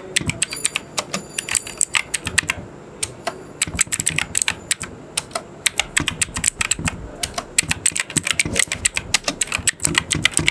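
Typing on an Ant Esports MK3000 mechanical keyboard with clicky blue switches, which the reviewer takes for Chinese clones of Cherry MX Blue: many sharp key clicks in quick, irregular succession, with a short lull about three seconds in.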